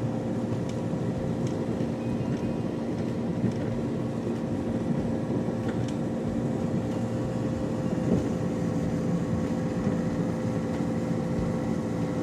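Small boat's outboard motor running steadily at a constant pitch while under way.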